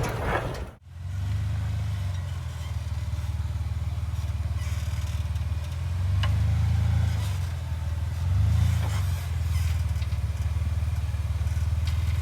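Off-road 4x4's engine running at low revs, swelling twice as the throttle is eased on.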